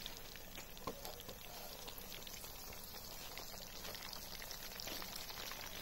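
Whole cauliflower deep-frying in very hot oil in a pan over a wood fire: a faint, steady sizzle and bubbling with small crackles.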